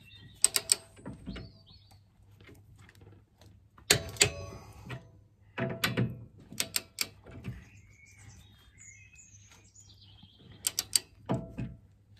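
Torque wrench ratcheting and clicking in several short runs as the rear suspension arm bolts are tightened to 60 newton meters. Birds chirp faintly in the background.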